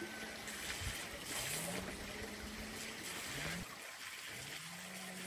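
Mountain stream rushing steadily. A faint low drawn-out tone twice rises in pitch and then holds level over it.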